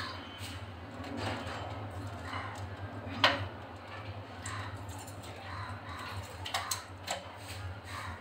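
Partly frozen chicken being cut and handled on a boti blade over a steel plate: handling noises, one sharp knock about three seconds in and a few smaller clicks near the end, over a steady low hum.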